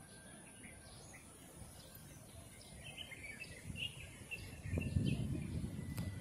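Small birds chirping over steady outdoor background noise; a low rumble grows louder near the end.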